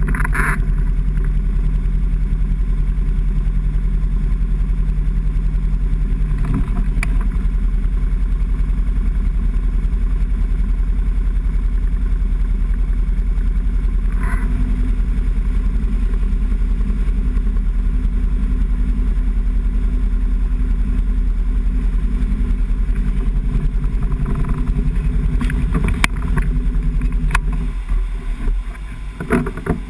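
An engine running steadily at an even speed, with a deep rumble; it falls away unevenly in the last couple of seconds.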